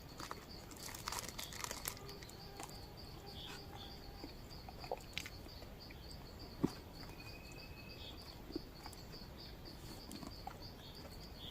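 Forest ambience: an insect chirping in a steady, evenly pulsing high rhythm, with scattered light clicks and rustles. There is one sharper click about two-thirds of the way through, and a brief high whistle soon after.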